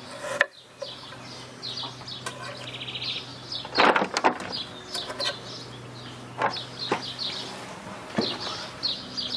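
Small birds chirping over and over, with a few sharp knocks and scrapes of a chef's knife on a wooden cutting board as an onion is sliced, the loudest about four seconds in.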